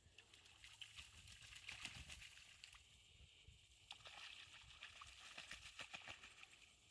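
Near silence: faint outdoor ambience with soft, irregular ticks.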